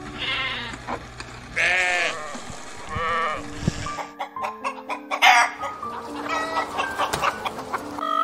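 Sheep bleating three times, then chickens clucking and calling from about halfway, over background music.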